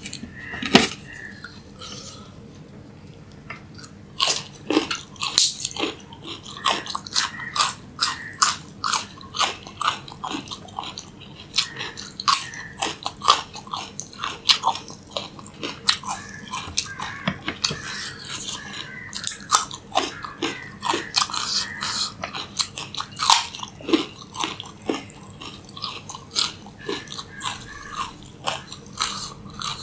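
Raw carrot being bitten and chewed up close: one sharp crunch about a second in, then after a short pause steady crisp crunching chews, about two a second.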